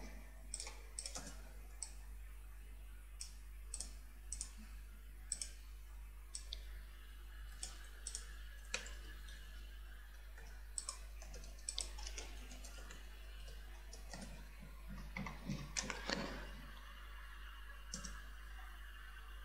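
Faint, irregular clicking of computer keyboard keys and a mouse as text is typed, with a denser run of louder clicks about three quarters of the way through, over a steady low hum.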